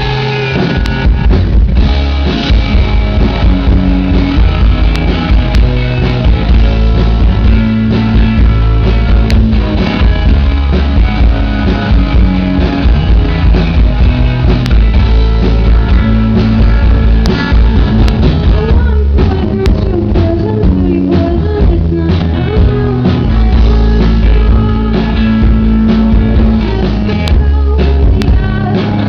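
A rock band playing live and loud: electric guitar over a drum kit, with a heavy low end.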